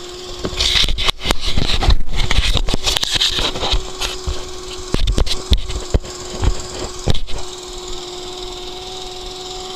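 Small hovercraft engine idling steadily. Loud rustling and scraping of ski goggles being handled and pulled on close by for the first few seconds, with several sharp knocks over the next few seconds.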